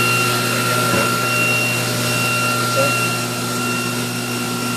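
Mazak Nexus 410A vertical machining center's spindle running at a steady high speed: an even whine over a steady hum.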